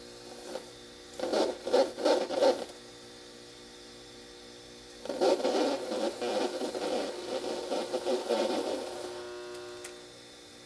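Homemade optical sound-on-film playback: 35mm film with an optical audio track is pulled by hand past a slit and LED photodetector and comes out of the speakers as harsh, noisy sound. There are two bursts, a short one about a second in and a longer one from about five seconds in. Under it runs a steady mains hum, which is put down to electrical noise from the halogen lamp lighting the film.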